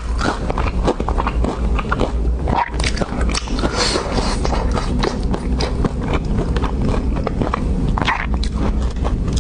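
A dog eating: dense, irregular crunching and smacking bites of food close to the microphone, over a steady low hum.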